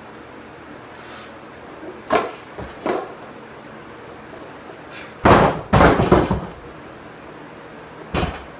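Heavily loaded barbell with black plates being lifted from wooden blocks in a clean, with a couple of clanks around two to three seconds in. About five seconds in it is dropped back onto the wooden blocks, a heavy crash followed by a few seconds of clattering as the plates settle. One more knock comes near the end.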